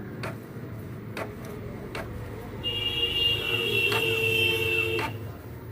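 Canon G-series ink-tank inkjet printer printing a colour page: a few sharp clicks about a second apart, then a steady high-pitched whine for about two and a half seconds as the printed sheet feeds out.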